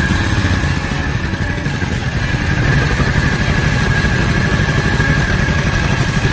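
Harley-Davidson WL 750 cc flathead V-twin idling steadily, its hot cylinders being doused with water.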